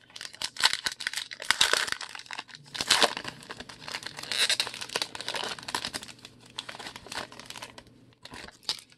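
Foil wrapper of a 2020 Donruss baseball card pack being torn open and crinkled by hand, a busy crackle of small snaps that thins out near the end.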